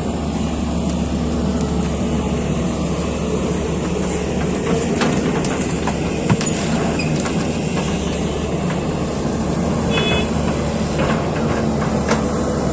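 Heavy construction machinery engine running steadily under work, with scattered short knocks and clanks around the middle and again near the end.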